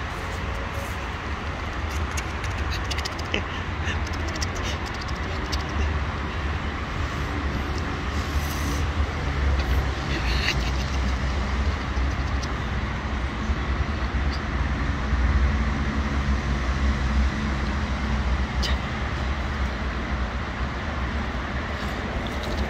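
Steady low rumble of road traffic, with a few faint clicks and taps scattered through it.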